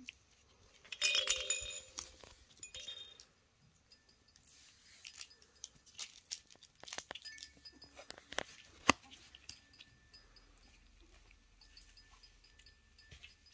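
Puppies playing among a baby play gym's hanging toys: a brief high-pitched squeak about a second in, a fainter one shortly after, then scattered light clinks, rattles and taps.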